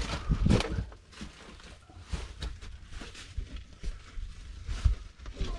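Irregular scuffs, scrapes and knocks over a low rumble, loudest in the first second: people moving about and handling gear.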